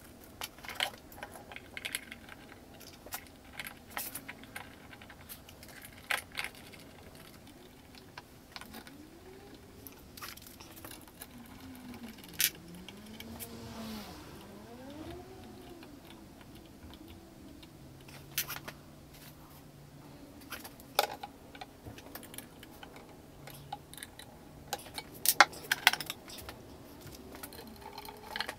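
Scattered metallic clicks, clinks and knocks of aluminium frame parts, screws and hex keys being handled and fitted while assembling a desktop CNC router, with a few louder knocks about halfway through and near the end.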